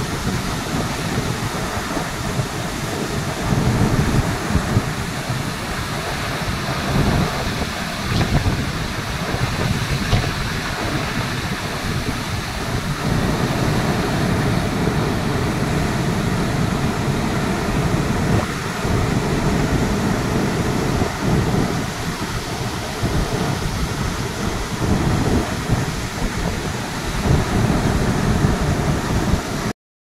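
Tamda Ghumar waterfall plunging over a cliff: a loud, steady roar of falling water with a deep rumble that swells and fades. It cuts off suddenly just before the end.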